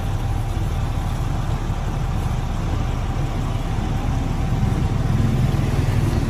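Steady low engine rumble of street traffic and idling motor vehicles, growing a little louder near the end.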